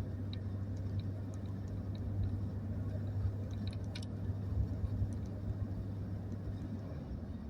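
Steady low rumble of a moving vehicle heard from inside its cabin: road and engine noise, with a few faint small clicks.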